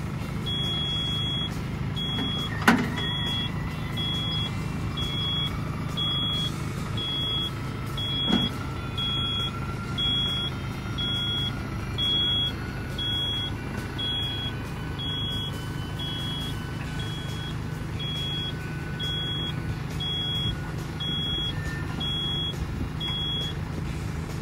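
Kubota SL600H tractor's diesel engine running steadily while an electronic warning beeper sounds about every three-quarters of a second. Two sharp clunks, about 3 and 8 seconds in, and a faint whine that slowly rises in pitch.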